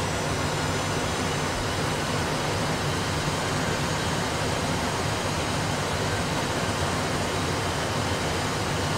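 Steady cockpit noise of an Airbus A320 full flight simulator: an even rushing hiss over a low hum, unchanging throughout.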